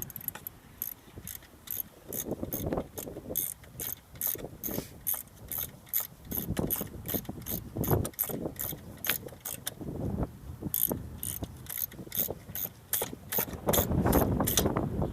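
Ratchet wrench clicking in quick, even runs of about four clicks a second, with brief pauses, as the alternator's 10 mm mounting bolts are tightened down. Lower knocks and rubbing of the tool and hand against the bracket come in between.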